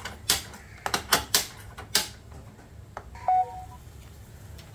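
Gas stove igniter clicking several times in quick succession as the burner is relit, then one more click and a short beep about three seconds in.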